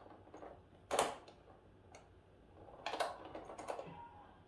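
Payen arithmometer, a 19th-century mechanical calculator, having its crank turned for a division: the gears and crank mechanism give sharp mechanical clacks, one strong one about a second in and a quick cluster of clicks around three seconds in.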